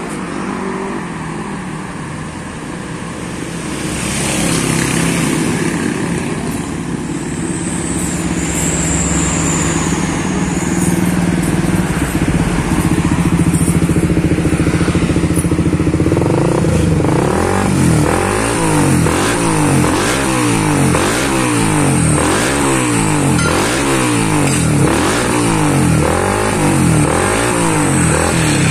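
Suzuki GSX 150's single-cylinder engine running steadily, then from about halfway revved again and again in quick throttle blips, roughly once a second. The engine has had its cylinder head ported and polished.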